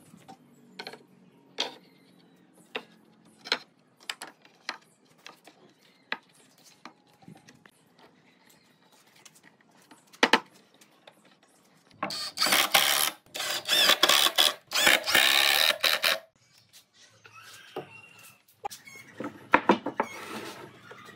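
Wooden boards and tools being handled on a workbench: scattered sharp knocks and taps, then a few seconds of louder, rough, continuous noise about twelve seconds in, followed by more knocks.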